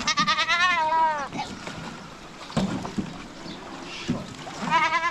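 Two quavering livestock bleats: a long one of about a second at the start that falls in pitch at its end, and a shorter one near the end, with a couple of knocks between them.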